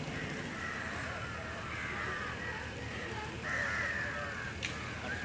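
A flock of crows cawing, harsh calls coming again and again in overlapping groups, with a single sharp click near the end.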